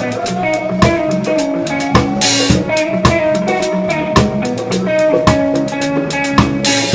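Live reggae band playing, heard from right beside the drum kit: drums struck about once a second, with guitar and bass and a held note over them. Cymbals wash out about two seconds in and again near the end.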